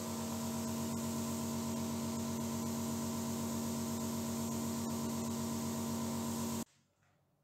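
Bench grinder running with a steady hum and hiss while a brass candlestick part is held against its spinning brass wire wheel, cleaning the metal. The sound cuts off suddenly near the end.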